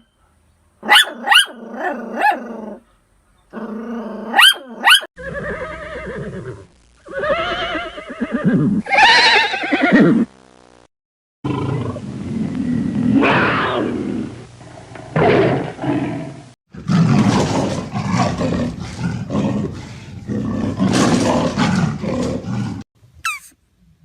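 A run of separate animal calls: short pitched cries in the first few seconds, arching calls after that, then long rough roaring and growling from a big cat, a lion or tiger, through the second half.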